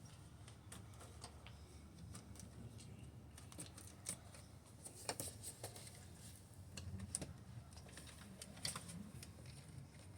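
Faint scattered clicks and taps of computer cable connectors being unplugged and small parts handled inside a computer case.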